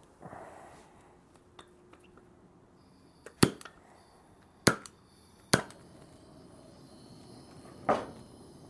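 A trigger-start propane torch being readied and lit: four sharp clicks spread over a few seconds, the last near the end followed by a brief rush as the flame catches, then a faint steady hiss.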